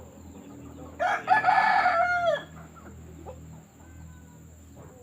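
A rooster crowing once, about a second in: a single loud call of roughly a second and a half that drops in pitch at the end.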